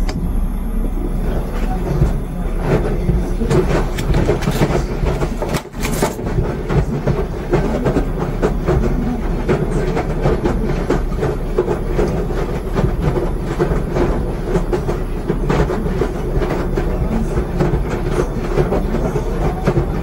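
Washer-dryer running: a steady low rumble with rapid, irregular clicking throughout. It dips briefly about six seconds in.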